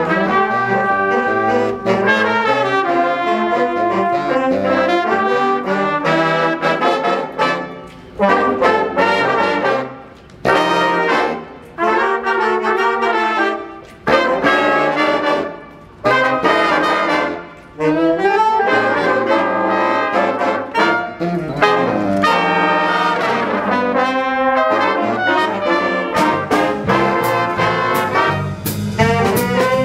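Live school jazz big band playing, with trumpets, trombones and alto saxophones in front of a rhythm section. Through the middle the band plays a run of short accented hits about every two seconds, with brief gaps between them, before going back to continuous playing.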